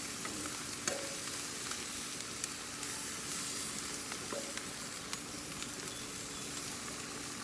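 Parboiled chicken and foil potato packs sizzling on hot grill grates, a steady hiss with a few scattered pops and crackles.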